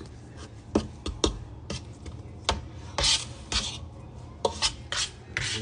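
Kitchen items being handled: scattered clicks and knocks with short rubbing, scraping swishes, the loudest about three seconds in and just before the end.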